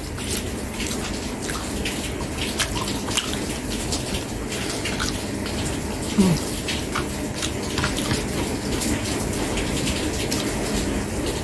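Close-miked eating: a metal spoon clicking and scraping on a plate of rice, with wet chewing that sounds like a steady watery hiss. A short falling hum comes about six seconds in.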